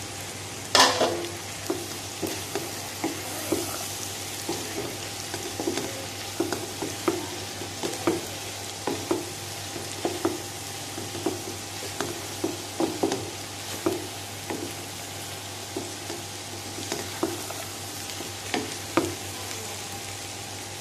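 Spoon stirring fried bitter gourd (karela) into chana dal masala in a karahi over the heat: the spoon knocks and scrapes against the pan about twice a second over a steady sizzle, with one louder clatter about a second in.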